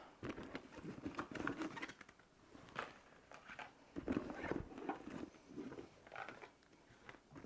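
Things being taken out of a canvas handbag by hand: faint, irregular rustling and light knocks of items being handled.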